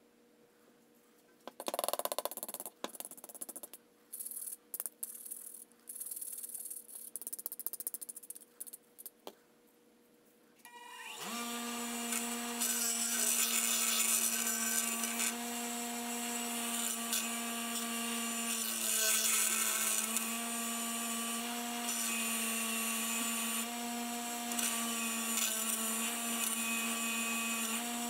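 About eleven seconds in, a bench grinder motor is switched on and spins up, then runs with a steady hum. A rusty steel cross-pein hammer head is pressed to the wheel, and its grinding hiss swells and eases. Before that comes a run of short, irregular noisy bursts.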